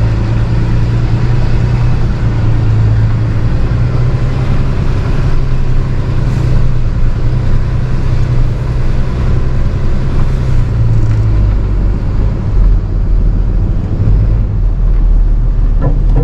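Tow truck engine running steadily, heard from inside the cab, as the truck is manoeuvred at low speed into position in front of a stuck van; the engine note drops lower about eleven seconds in.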